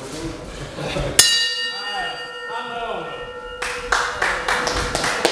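Boxing ring bell struck once about a second in, ringing with a bright metallic tone for about two and a half seconds before it cuts off suddenly, signalling the end of the round. Scattered voices and sharp taps lie around it.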